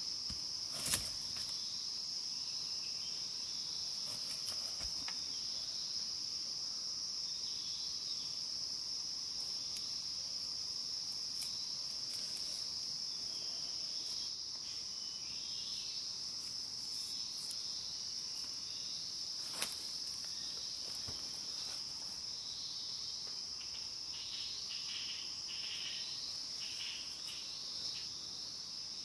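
Steady, high-pitched insect chorus in dense forest, with a sharp click about a second in and another about two-thirds of the way through.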